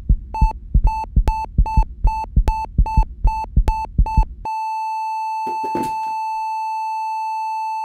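Heart-monitor sound effect: quick regular beeps, each with a low heartbeat thump, about two and a half a second. A little over halfway they stop and become one steady unbroken flatline tone, the sign of cardiac arrest.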